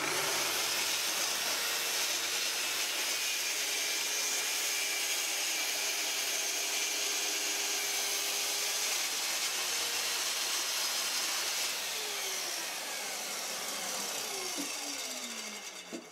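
Festool TS 55 plunge-cut track saw running and ripping through a board along its guide rail, a steady whine. In the last few seconds it drops in level and the pitch falls as the blade spins down.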